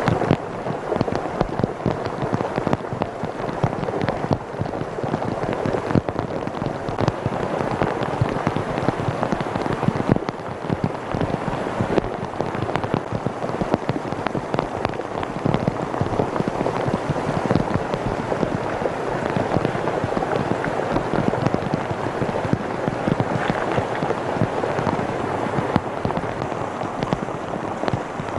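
Heavy rain, with many drops striking close to the microphone as sharp pops over a steady rush of floodwater.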